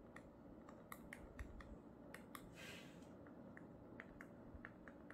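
Faint, irregular taps of a stylus tip on a tablet screen during handwriting, about two or three a second, with one brief scratch of a stroke near the middle.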